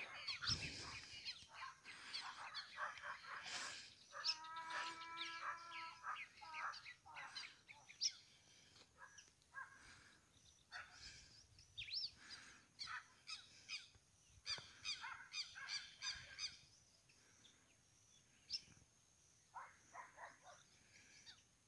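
Faint birds chirping and calling on and off, with one longer, steady-pitched call about four seconds in and a single sharp click about eight seconds in.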